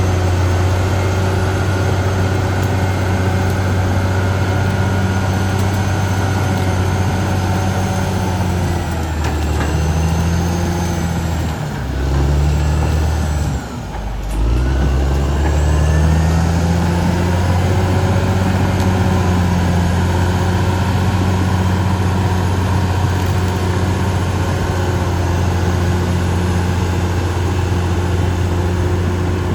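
Caterpillar D6R XL bulldozer's diesel engine running steadily. About ten seconds in its speed sags, drops lowest around twelve to fourteen seconds in, then climbs back up to a steady run.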